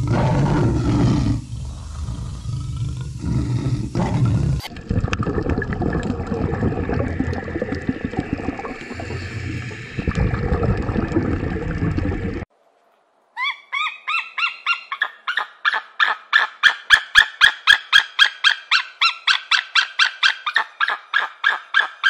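Deep, rough animal calls in two clips, cut suddenly about four seconds in, stopping about twelve seconds in. After a brief gap, a bird's honking calls repeat about four times a second.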